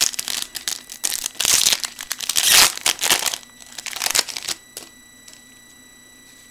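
Foil wrapper of a trading-card pack being torn open and crinkled by hand, in a run of noisy bursts that stop about four and a half seconds in.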